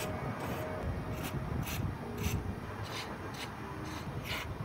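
WD-40 aerosol can sprayed through its thin extension straw in a run of short hissing bursts, roughly two a second.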